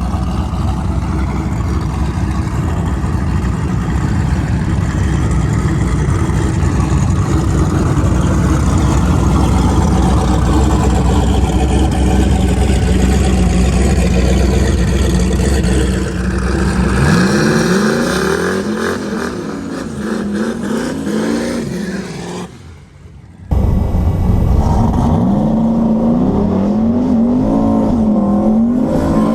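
Turbocharged 4.8-litre LS V8 in a Fox-body Mustang running loud and steady, then revving up and down repeatedly in the second half, with a short break in the sound a little past two-thirds of the way through.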